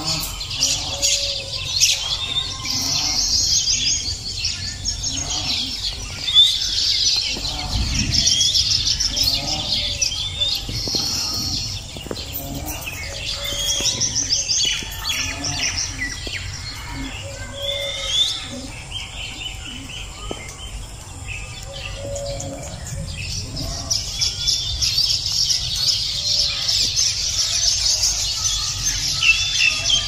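Rose-ringed parakeets chirping and chattering in rapid, high calls without a break, over a low rumble.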